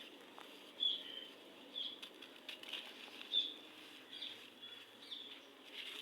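Gritty red sand crumbling, a series of short dry crunches about once a second over a soft continuous rustle.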